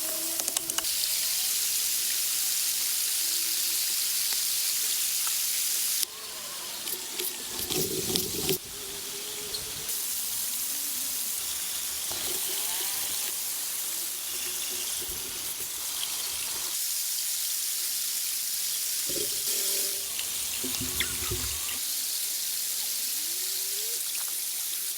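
Steady rush of running water, with a few dull low thumps about a third of the way in and again near the end.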